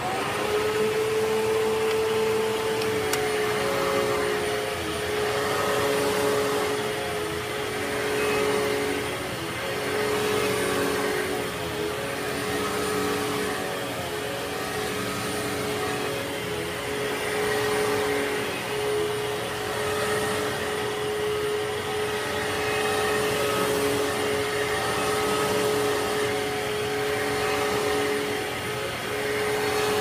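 Vacuum cleaner motor running steadily, with a constant hum and a high whine, swelling slightly in loudness now and then.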